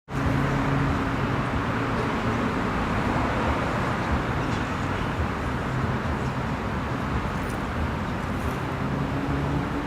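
Steady road traffic noise from passing cars, with a low engine hum that comes and goes.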